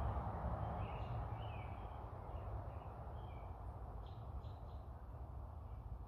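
Songbirds singing in the background: scattered short chirps and brief phrases through the first half, then three quick notes a little after four seconds. A steady low rumble runs underneath.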